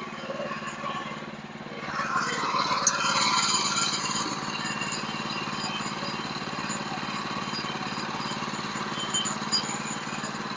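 Sawmill engine running steadily while the saw cuts through a log; about two seconds in the cutting noise rises sharply as the blade bites into the wood, then settles into a steady hiss over the engine hum.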